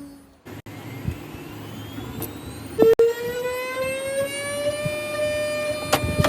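A CNC machine's high-speed spindle motor whining. Its pitch climbs for a second or two as it spins up, then holds steady. A couple of sharp clicks are heard, one about 3 seconds in and one near the end.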